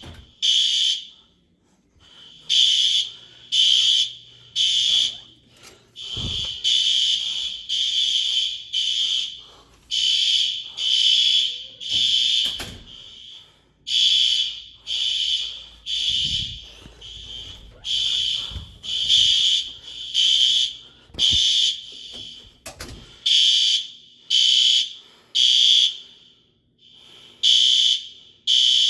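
Building fire alarm sounding the temporal-three (Code 3) evacuation pattern: loud, high beeps in repeated groups of three with short pauses between. A few dull thumps sound underneath.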